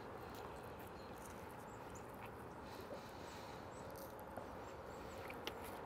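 Faint outdoor background: a steady low hiss with scattered small high-pitched chirps, and a couple of faint clicks.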